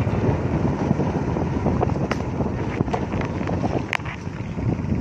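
Wind rushing over the microphone over the steady rumble of a moving vehicle on the road, with a couple of sharp clicks or rattles.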